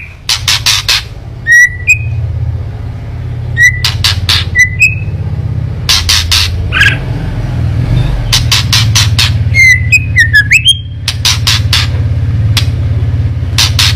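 White-rumped shama (murai batu) giving its 'kretekan' call: several bursts of rapid, harsh clicking rattles, with short rising whistled notes between them, over a steady low hum. This is the shama's excited, aggressive rattle, used as a provocation call to rouse other shamas.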